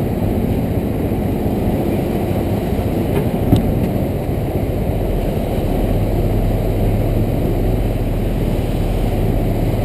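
Vehicle engine running steadily at low revs, a dense low rumble whose hum grows firmer about six seconds in, with one short sharp click about three and a half seconds in.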